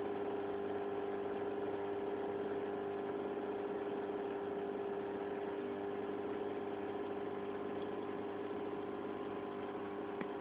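Steady mechanical hum of an aquarium's running filter or air pump, one even tone with fainter overtones, unchanging; a faint click just before the end.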